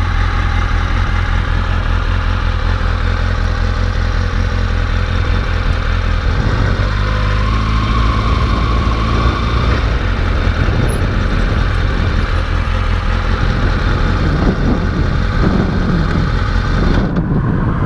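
Kawasaki Ninja motorcycle engine idling steadily.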